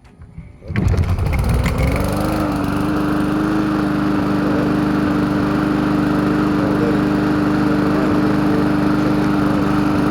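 Small push lawn mower engine pull-started without priming: it catches about a second in, climbs in pitch and settles into a steady run.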